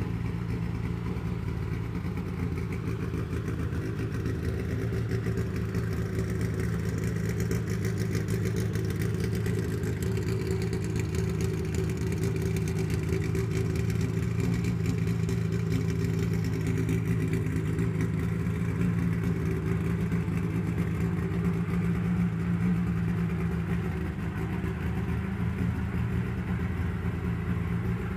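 Racing Honda S2000's naturally aspirated F20C four-cylinder engine idling steadily through an aftermarket J's Racing exhaust.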